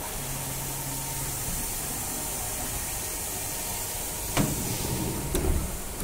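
CNC vertical machining centre starting its program, with a steady mechanical hum and hiss. About four seconds in there is a sharp clack, then louder splashing and hiss as flood coolant begins spraying onto the tool and the workpiece in the vise.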